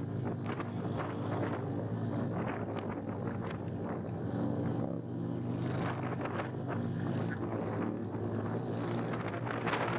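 Motorcycle engine running at a steady, even pitch.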